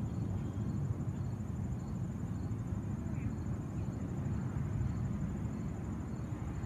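Crickets chirping in a continuous high trill, with fainter chirps repeating about twice a second, over a steady low outdoor rumble.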